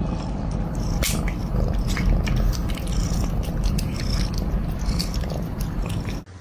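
A cat close to the microphone: a steady low rumble with scattered short clicks throughout, starting and stopping abruptly.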